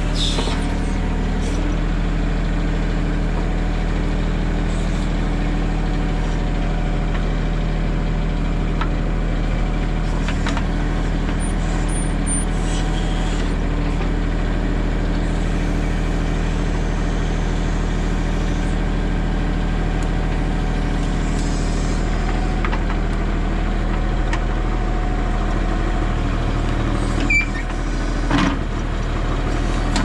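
Mahindra 1626 compact tractor's diesel engine running steadily under the backhoe work. A couple of sharp knocks come near the end.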